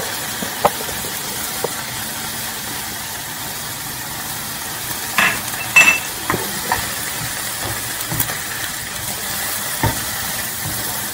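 Shredded chicken with onion and garlic sizzling in a nonstick frying pan over a gas flame: a steady hiss. Scattered clicks and taps of a utensil against the pan come through it, the loudest a little under six seconds in.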